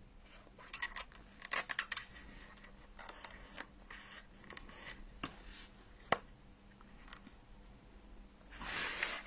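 Faint rustling and small clicks of hands working thin double-sided tape around a felt-covered pumpkin stem, with one sharper click about six seconds in.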